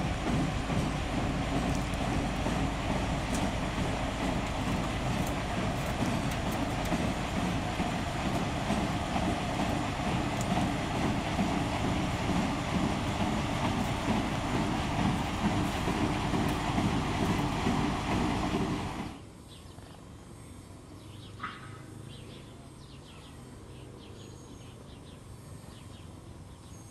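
TU2 narrow-gauge diesel locomotive's twin V12 diesel engines running as it moves slowly along the track, during its running-in after repair. About 19 seconds in the sound cuts abruptly to a faint outdoor background with a brief bird chirp.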